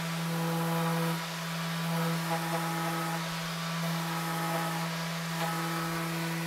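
Electric random orbit sander running steadily against a painted cabinet frame, sanding down built-up paint, with a constant low motor hum and the hiss of the pad on the surface.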